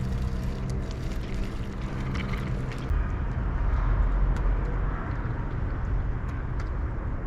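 Street traffic: a motor vehicle's engine hum, followed by a low rumble of passing traffic.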